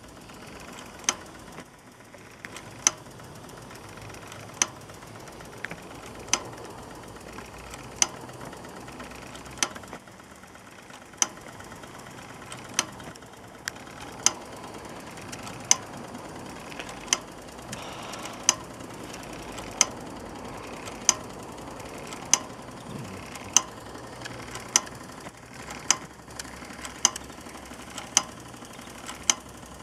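Belt-driven tinplate Doll blacksmith toy, its hammer striking the anvil in sharp single clinks, about one every one and a half seconds at first and quickening to about one a second, over the steady running of the small Doll 304/2 live-steam engine that drives it.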